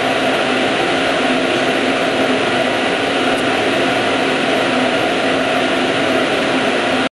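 Steady, unbroken whooshing hum of the operant chamber's ventilation fan and background noise, with no distinct pecks or clicks.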